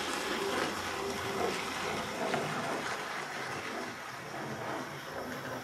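Hornby OO-gauge Thomas the Tank Engine model pulling Annie and Clarabelle coaches around the track: a steady whir of the small electric motor and wheels running on the rails. By its owner's account the model still needs a good running session to run in.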